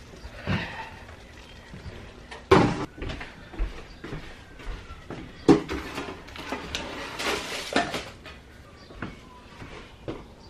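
Irregular knocks and clatter from handling cookware and food, with two louder bangs about two and a half and five and a half seconds in.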